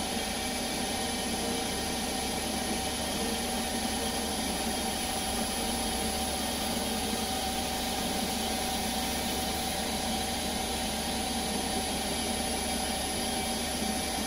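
Small CNC lathe running steadily, its spindle turning a plastic bar while the tool makes a profiling cut, with a constant high whine over the motor's hum.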